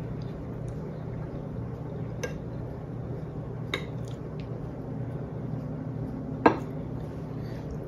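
A metal spoon clinking against a soup bowl three times while eating, about two, three and a half and six and a half seconds in, the last clink the loudest, over a steady low hum.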